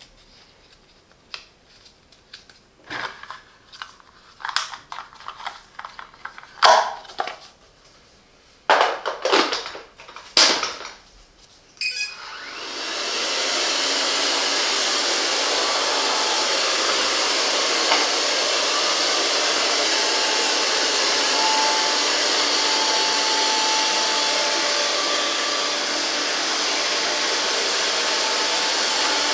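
A series of handling clicks and knocks, then about twelve seconds in the Grundig VCR 2330 robot vacuum cleaner starts up and runs steadily, its suction fan making an even whirring noise.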